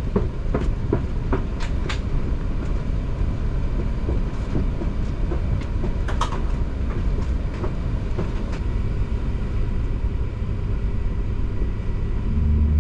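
Airliner cabin noise in an Airbus A380 while taxiing: a steady low rumble. Sharp knocks and rattles come several times in the first two seconds and again in a cluster about six seconds in.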